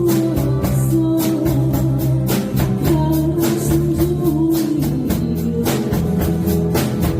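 A live band of drum kit, bass, guitar and keyboard playing a trot song, with the drums keeping a steady beat and a sung melody held above.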